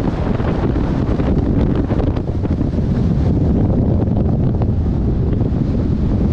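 Strong wind buffeting the microphone: a loud, steady rumble with no letup.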